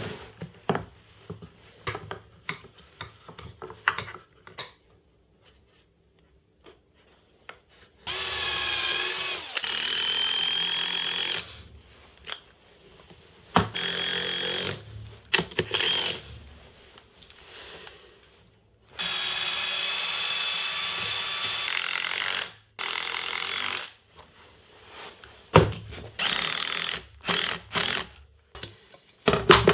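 Birch plywood blocks knocking and clattering as they are handled, then a cordless driver running in several bursts, two of them about three seconds long with a steady whine, driving screws through steel door hinges into birch plywood. More knocks of wood near the end.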